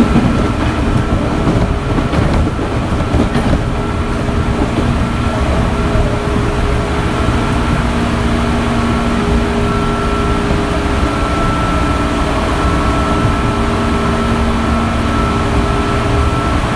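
Interior running sound of a JR 205 series electric train car: its traction motors with externally mounted cooling fans hum in several steady tones over a low rumble of wheels on track.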